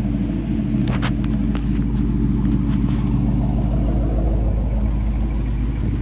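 2018 Ford Mustang GT's 5.0-litre Coyote V8 idling steadily, heard at its quad exhaust tips from behind the car, with a few brief clicks about a second in. This is the engine with the 'typewriter tick' that the owner has lived with for three years without knowing whether it is good or bad.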